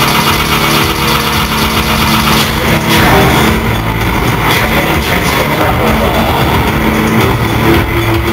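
Industrial rock band playing live at high volume: a dense, loud wash of synths, guitars and drums with a few held low notes.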